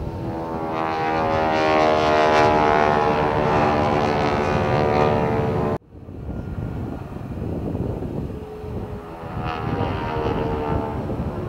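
A vintage de Havilland Tiger Moth biplane's piston engine and propeller drone as it flies past, building to a peak about two seconds in. The sound cuts off abruptly near the middle, then a fainter engine drone returns near the end.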